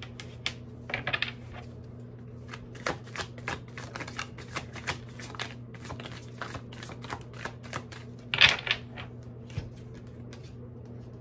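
Tarot cards being shuffled by hand: a run of quick flicks and taps, with two louder rasping bursts, one about a second in and one near the end. A steady low hum runs underneath.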